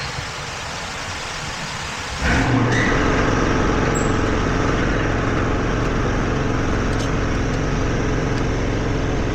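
A steady mechanical running noise switches on abruptly about two seconds in and carries on unchanged, with a low hum under it.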